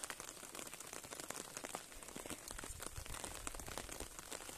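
Rain on a fabric umbrella overhead: many faint, irregular ticks of drops, with a soft low rumble a little past halfway.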